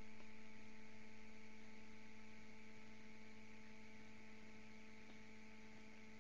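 Steady low hum made of several fixed tones over a faint hiss, slowly fading, with nothing else happening: background noise on the lecture's audio line.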